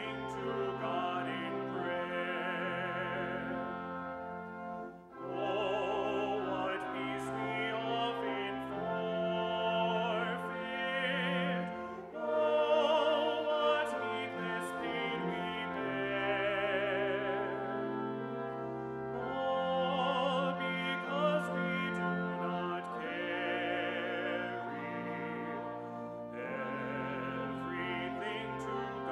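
Live instrumental trio playing a slow classical-style piece: a flute carries a wavering melody over sustained low cello notes, with short breaks between phrases.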